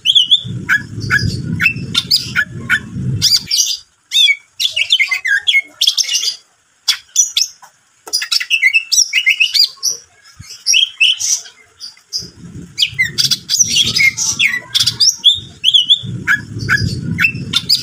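Male green leafbird (cucak ijo) singing: a fast, varied run of chirps, whistles and trills, with short pauses about four and eight seconds in. A low rumbling noise lies under the song during the first few seconds and again from about twelve seconds on.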